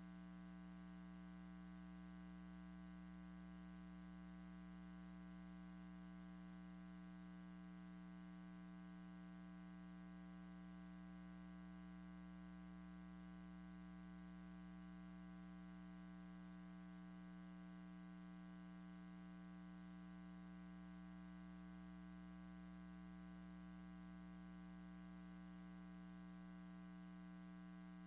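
Near silence apart from a faint, steady electrical hum and buzz, one unchanging tone with many overtones over a light hiss.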